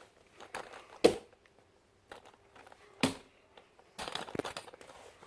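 Objects being handled on a table: two sharp knocks, about a second and three seconds in, then a spell of crackling and clicking near the end.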